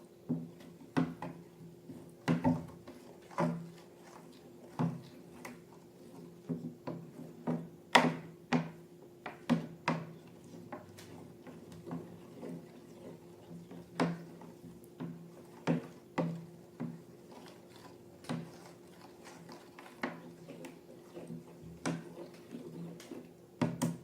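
Irregular sharp clicks and taps, one or two a second and uneven in loudness, from objects being handled during slime-making, over a steady low hum.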